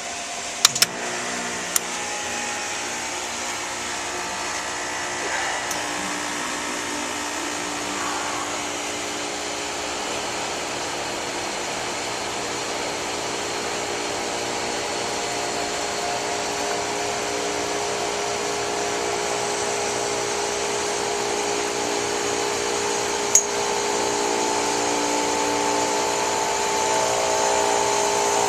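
Air conditioner condensing unit running in pump-down, its compressor and condenser fan making a steady mechanical hum with several steady tones that grows slightly louder over time. A few sharp clicks come about a second in, and a single click near the end.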